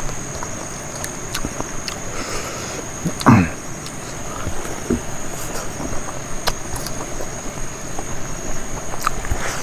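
Close-up eating by hand: wet chewing and scattered sharp mouth clicks over a steady high insect drone. About three seconds in, one short loud sound sweeps quickly down in pitch.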